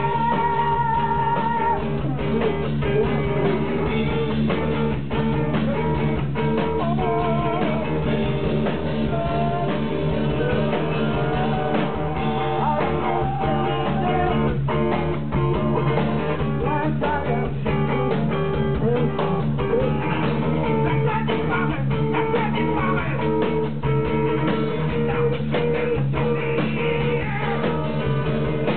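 Live heavy noise rock band playing a dense, droning wall of distorted guitar and bass, with steady drum hits and a singer's voice over it.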